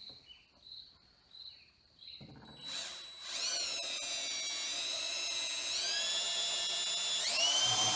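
Power drill boring a small hole through a plywood seat base. A short burst about three seconds in, then the motor whines steadily, stepping up in pitch and getting louder toward the end.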